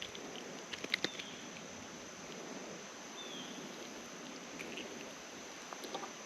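Creek water running steadily, with a few sharp clicks about a second in and again near the end.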